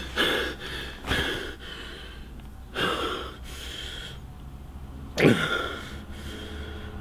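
A man breathing heavily in gasps, four loud breaths spaced a second or two apart; the last, about five seconds in, carries a voiced groan that falls sharply in pitch.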